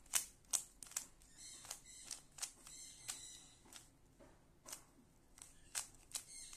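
Rubik's cube layers being turned quickly by hand: a dozen or so sharp, irregular plastic clicks, some in quick pairs, as the yellow-cross algorithm is worked.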